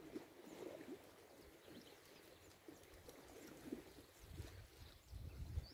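Near silence: faint, scattered bird chirps, and from about four seconds in a low rumble of wind on the microphone.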